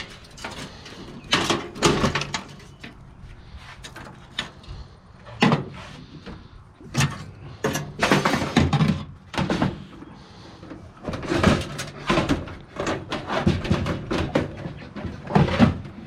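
Irregular knocks, clunks and rattles of computer tower parts and metal case panels being handled and set down while the towers are taken apart, in clusters with short pauses between.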